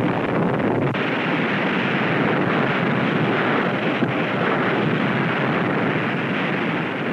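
Test Baker underwater atomic bomb explosion on an old film soundtrack: a loud blast noise that cuts in suddenly out of silence and goes on as a steady rushing roar, easing slightly near the end.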